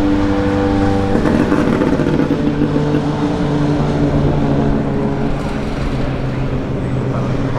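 Audi Sport Quattro S1 E2's 2.1-litre turbocharged five-cylinder engine running at fairly steady revs, its pitch changing about a second in.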